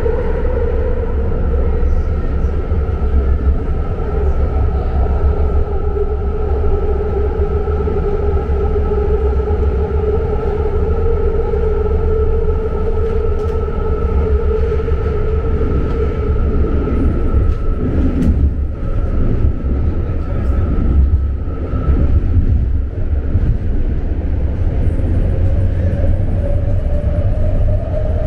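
Interior of a BART Fleet of the Future train car in motion: a loud, steady low rumble with a sustained whine of two high tones. The whine fades out about two-thirds of the way through, and a new tone rises near the end.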